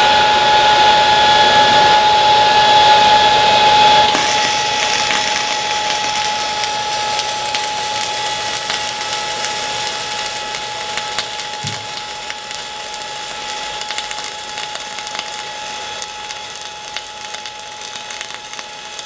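A steady whirring hum runs for about four seconds. Then the ESAB Rebel EMP 235ic's flux-cored MIG arc strikes and crackles and sizzles steadily as a weld is run vertical up, throwing sparks.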